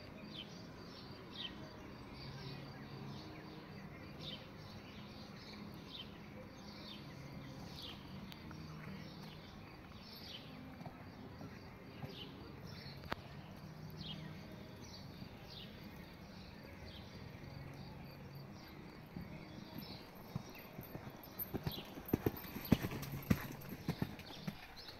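A horse's hooves striking the sand of the dressage arena, becoming a run of sharp, loud hoofbeats in the last few seconds as the horse passes close by. Birds chirp in short repeated calls throughout.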